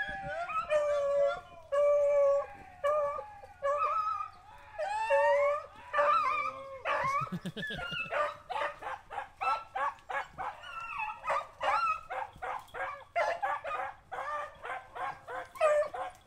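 A pack of rabbit-hunting hounds giving voice on a rabbit's trail: long drawn-out howling notes for the first half, then quick short barks, several a second, from about eight seconds in.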